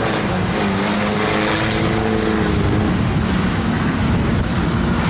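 Engines of several classic saloon stock cars running at low revs as they circle the track, a steady drone whose pitch drifts slightly and eases off about three seconds in.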